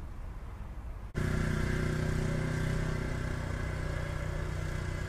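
A quiet background hiss for about the first second, then, after an abrupt change, a motor vehicle's engine idling close by with a steady, even-pitched hum.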